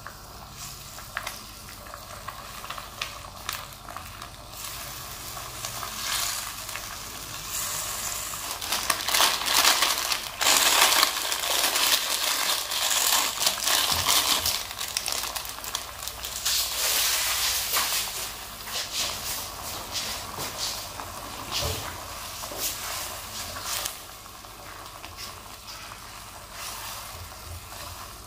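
Food sizzling and crackling as it fries in a pan, with many sharp pops over a steady hiss; it grows louder a third of the way in and settles back down near the end.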